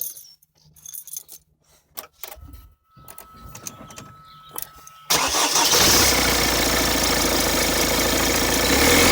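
A few light clicks and a faint steady tone, then a 1.6 HDi 110 four-cylinder turbodiesel starts about five seconds in and runs steadily. The owner is asking about a turbo whine from this engine.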